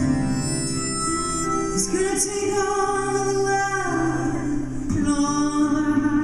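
Acoustic folk ensemble playing live: guitars under several voices singing long held notes, the first phrase entering about two seconds in and another about five seconds in.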